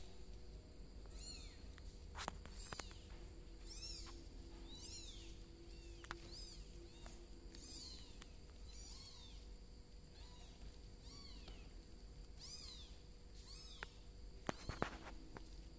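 Newborn bicolor kitten mewing: short, thin, high-pitched squeaks, roughly one a second, each rising and falling. A few soft taps or knocks come in between, several close together near the end.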